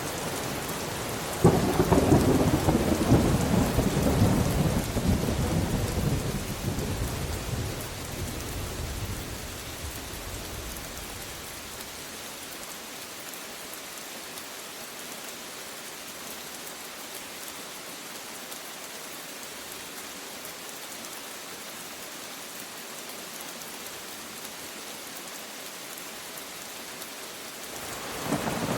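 Steady rain with a thunderclap breaking about a second and a half in, rolling and fading away over about ten seconds. Rain alone follows, and another rumble of thunder begins near the end.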